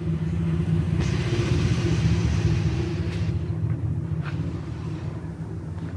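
A steady low mechanical hum and rumble. Rustling handling noise rises over it from about one to three seconds in, followed by a couple of faint clicks.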